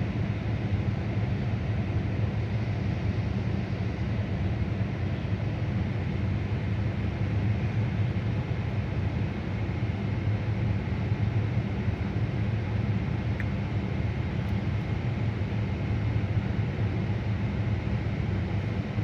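Car engine idling steadily. The owner is recording it to show a misfire on cylinder 2 after a cold start.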